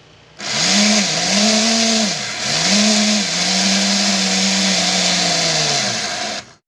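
Small Tamiya DC motor of a miniature grass chopper, driving the blade through a rubber-band belt and running with a high whirring hiss. Its pitch sags and recovers a few times, and it stops abruptly near the end.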